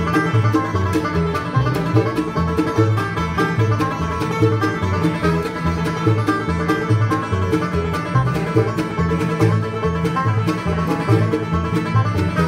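Live bluegrass band playing a fast instrumental led by a five-string resonator banjo picking rolls, with acoustic guitar, mandolin and upright bass. The bass plays steady alternating notes beneath.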